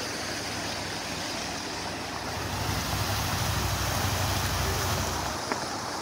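Water splashing in the fountain basins from several jets: a steady, even hiss. In the middle there is low wind buffeting on the microphone for a few seconds.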